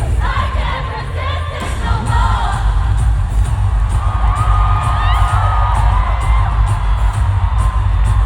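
Live pop concert heard from within the audience: loud amplified music with heavy bass and a steady beat, a sung melody with one long held note about halfway through, and the crowd cheering and whooping over it.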